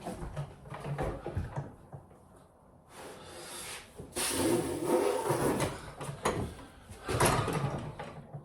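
Bath fittings being handled and worked into place by hand: irregular scraping, rubbing and knocking, with a quieter spell about two seconds in and louder scraping later on.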